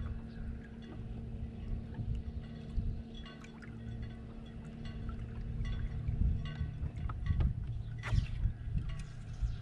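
Electric trolling motor on a bass boat humming steadily, then switching off about two-thirds of the way through, over the low rumble of wind on the microphone.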